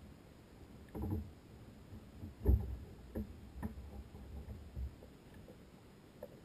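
Several thumps and knocks on a kayak hull as a netted spotted seatrout is handled against the boat's side, the loudest about two and a half seconds in.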